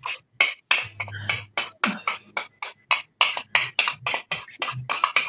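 A spoon scraping chili sauce out of a bowl in quick, even strokes, about five a second.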